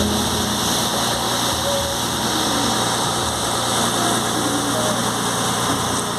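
Riverboat engine running steadily with an even, unchanging hum.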